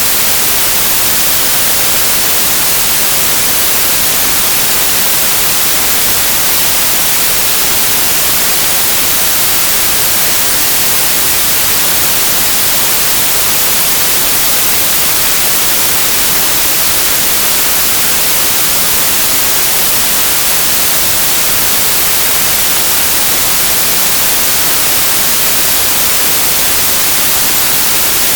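Loud, steady hiss of white noise, even and unchanging, brightest in the treble.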